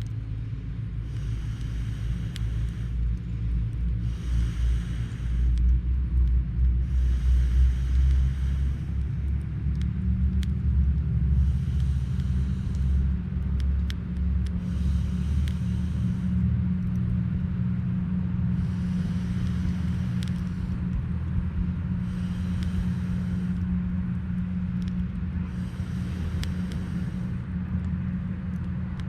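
Hardwood campfire burning, with a few sharp pops over a steady low rumble. A hiss swells and fades about every two seconds.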